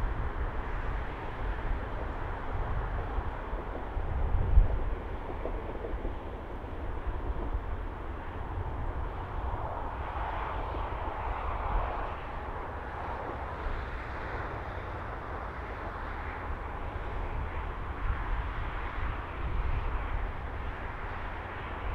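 A train running at a distance, a steady rumbling hiss that swells about halfway through, with wind buffeting the microphone.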